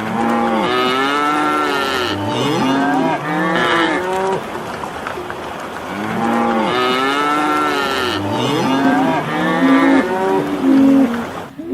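Several cattle mooing, their calls overlapping in two long choruses, with short rising-and-falling moos piling over one another.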